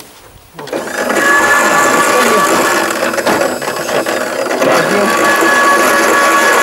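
Electric lift motor of a homemade mini tractor's rear hitch switching on about half a second in and running with a steady mechanical whine as it moves the hitch.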